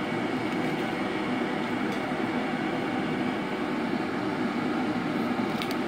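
Steady whooshing machine noise, like a fan running, with a faint light tick near the end.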